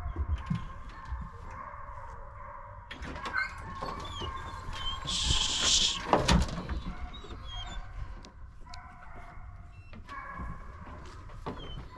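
Hunting hounds being loaded into a truck's dog box: irregular knocks and clanks of doors and latches while the dogs whine and stir. A brief hiss about five seconds in.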